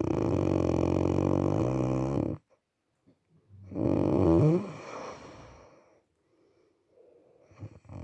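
Snoring: one long buzzing snore lasting a little over two seconds, then a shorter, louder snore about four seconds in whose pitch wavers and drops.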